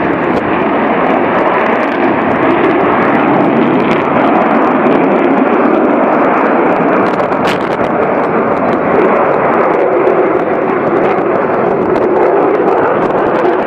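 Loud, steady aircraft engine noise from an airplane at an air show.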